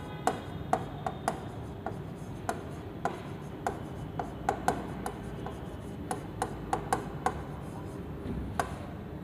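Stylus tapping and rubbing on the glass face of an interactive display board during handwriting: irregular sharp taps, about one to three a second, over a steady low background noise.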